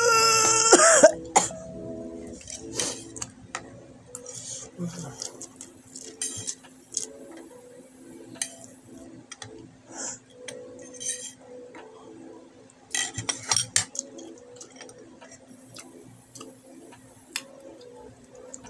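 A fork clinking and scraping against a food container, with open-mouthed chewing of noodles in short bursts. A loud voice burst comes in the first second, and faint background music runs underneath.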